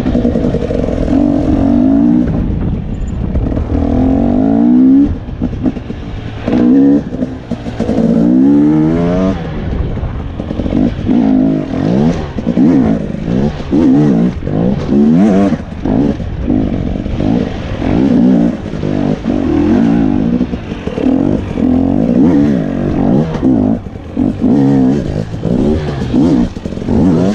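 Dirt bike engine revving, heard from on board: its pitch climbs and falls again and again, with longer climbs through the first few seconds and quick, short throttle blips through the rest.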